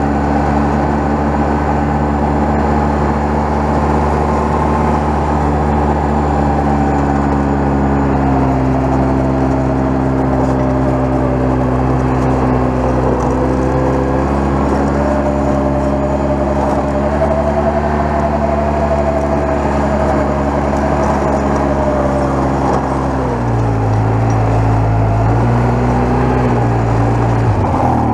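A 2002 Polaris Sportsman 700 ATV's engine runs steadily under load while the ATV plows snow, its pitch shifting up and down a few times with the throttle.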